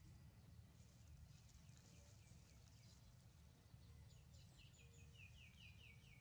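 Near silence with faint bird calls: a quick run of short falling chirps, about five a second, in the second half, over a faint low rumble.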